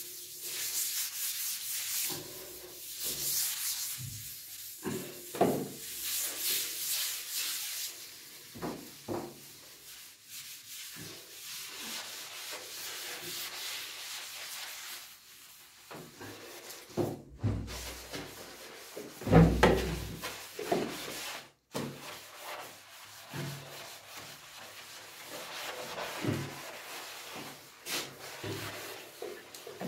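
Sponge scrubbing the inside of an empty bathtub: a scratchy rubbing of strokes against the tub surface, harder in the first several seconds. There are scattered knocks and a louder bump about twenty seconds in.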